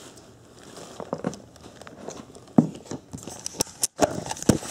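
Handling and movement noises as a person shifts forward in her seat toward the camera: rustling with several sharp knocks and clicks. The loudest knock comes about two and a half seconds in, and more knocks come near the end.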